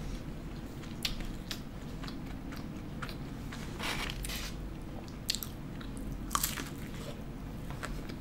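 A person biting and chewing a fried, breaded chicken finger up close, with sharp crunches of the crispy coating scattered irregularly over the soft chewing.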